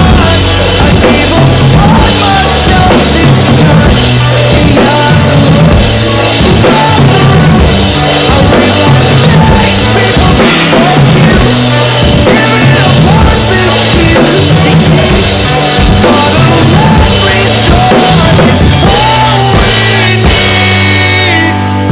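Acoustic drum kit played in a driving rock beat, with kick drum, snare and cymbals, along with a recorded rock song whose pitched instruments sound throughout.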